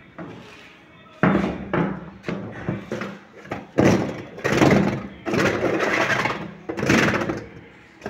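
Irregular knocks, scrapes and rattles of hands working inside the plastic spin tub of a twin-tub washing machine, over a steady low hum.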